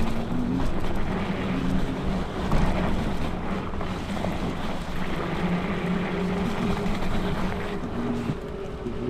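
A bicycle riding through about six inches of snow: a steady rush of tyre noise, with wind on the microphone and a faint steady hum underneath.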